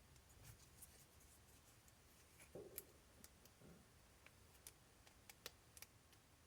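Near silence with faint, scattered small clicks of RC shock parts being handled on a workbench.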